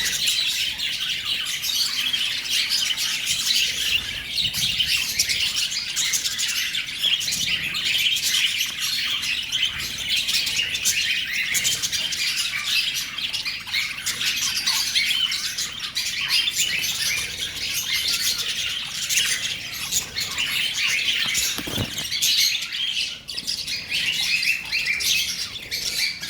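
A flock of lovebirds (small parrots) chirping and chattering nonstop, a dense run of rapid, high, overlapping chirps.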